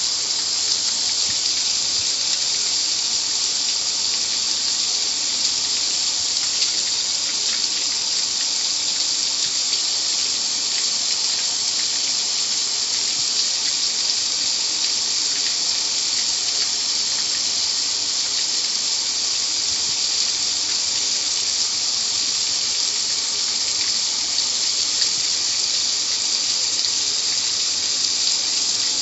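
Car wash water spray running steadily, a constant high rush of water with no break.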